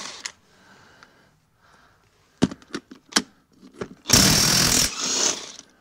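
DeWalt impact wrench hammering on a lug nut of a backhoe wheel in one burst of under a second, about four seconds in. A few sharp metallic clicks come a second or so before it.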